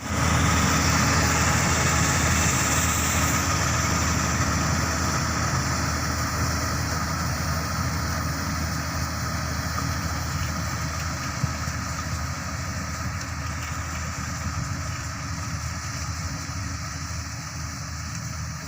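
Kubota combine harvester's diesel engine and machinery running at work, a steady mechanical drone that slowly grows quieter.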